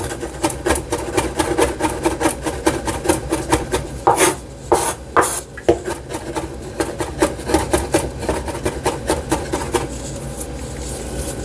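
Kitchen knife chopping rapidly on a wooden cutting board, mincing food fine, about five strikes a second. A few louder scraping strokes come about four to five seconds in.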